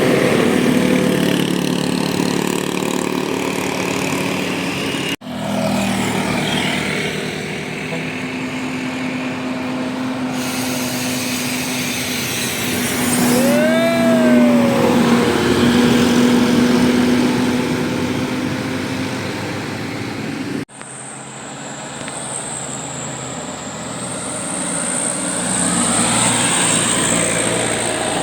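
Heavy vehicles, buses on a steep uphill road, passing close by with their diesel engines running under load, in three short clips cut together. About halfway through, a brief pitched tone rises and falls once.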